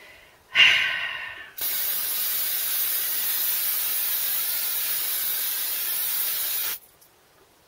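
Aerosol can of spray string (silly string) being sprayed. First a short, louder spurt, then one long, steady hiss lasting about five seconds that cuts off abruptly.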